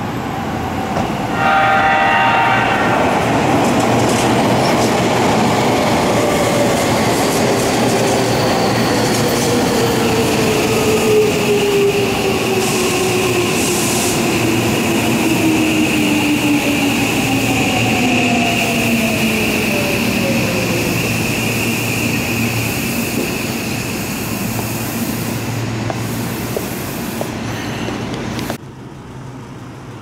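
Seibu electric commuter train arriving: a short horn blast about a second in, then the motors whine down in pitch as the train slows and rolls past over the rails. The sound cuts off abruptly near the end.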